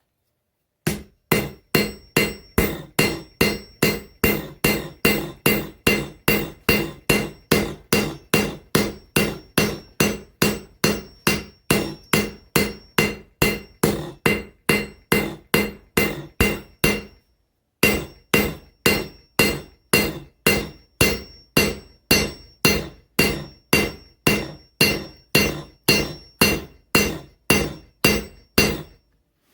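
Cross-peen hammer striking hot mild steel on an anvil in a steady run of blows, about three a second, each blow ringing. The blows spread the axe blank's ends wider. There is one short break a little past halfway.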